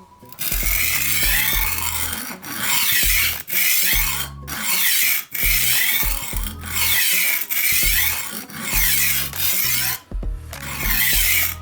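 HORL rolling knife sharpener: its abrasive disc rasping along a steel knife edge in repeated back-and-forth strokes, about one a second, with a short pause about ten seconds in.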